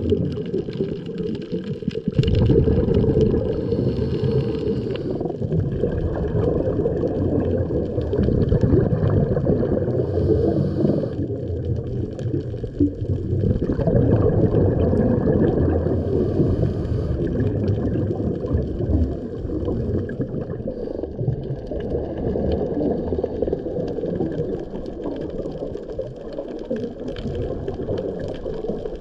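Muffled underwater rumble and gurgling of water moving around a camera held underwater, continuous and uneven, with almost nothing in the higher sounds.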